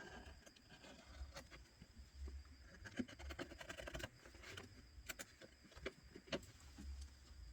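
Faint scraping and a few light clicks of a small hand tool working against a smartphone's frame, cleaning off old screen adhesive.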